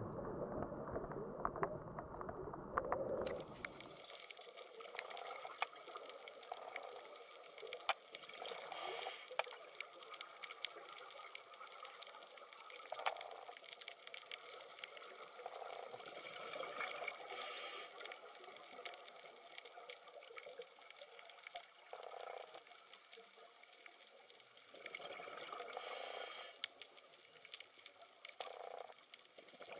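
Underwater ambience on a coral reef: a faint hiss full of fine crackling clicks, with short watery swells every few seconds. A louder low rumble fills the first few seconds, then stops.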